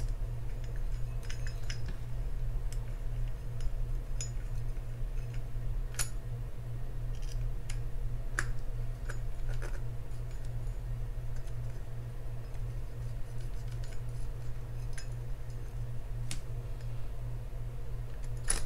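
Metal spinning-reel parts being handled as the spool of a Penn Spinfisher 6500SS is fitted back onto its shaft: scattered small, sharp metallic clicks and ticks, a few seconds apart, over a steady low hum.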